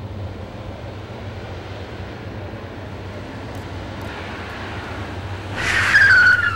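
Steady low road rumble, then near the end a loud, falling squeal of tyres as a Honda minivan brakes hard to a stop.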